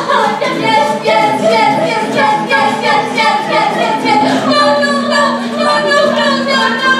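Voices singing a song together, with a low note held steadily for about two seconds near the end.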